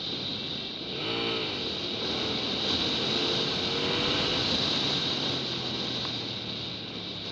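Hyosung GT650R's 650 cc V-twin engine running at a steady city cruising speed, heard from on the bike along with wind and road noise. About a second in, a brief tone rises and falls in pitch.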